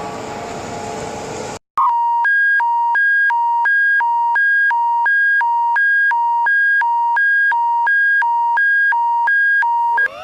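An emergency-alert tone from an EAS alarm: a steady electronic hi-lo tone that switches back and forth between a high and a low pitch, about one and a half cycles a second, for about eight seconds. Before it, a noisy siren-like alarm cuts off suddenly about a second and a half in, followed by a brief gap.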